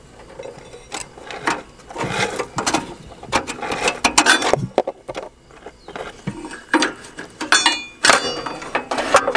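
Irregular metal clinks, knocks and scrapes of hand tools and parts as the drive shaft and clutch assembly of a 1964 Cub Cadet 122 garden tractor is worked loose, with a quick cluster of clicks near the end.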